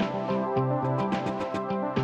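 Background music: an electronic track with a steady beat, held chords and a pulsing bass line.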